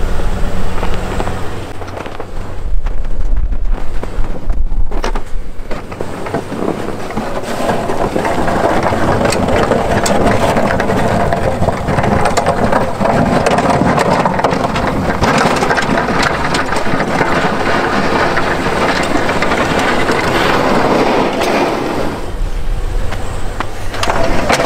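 Boss snowplow blade on a Chevy pickup scraping along the frozen ground and pushing snow as the truck drives past. The scraping builds a few seconds in, holds steady, and fades near the end.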